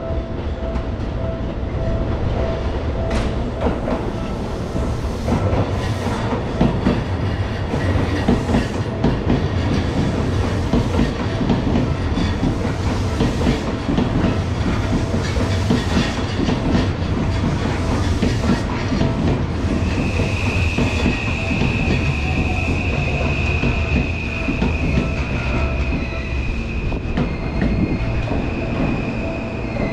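Seibu Laview limited express train running slowly along the station tracks, its wheels clacking over rail joints under a steady low rumble. From about two-thirds of the way in, a steady high-pitched wheel squeal comes in and holds as a train rolls into the platform.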